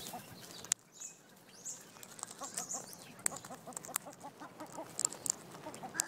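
A parrot eats seed from a hand right beside the microphone, its beak giving sharp clicks every so often as it cracks seeds. Other birds call softly and repeatedly in the background, with a few high chirps.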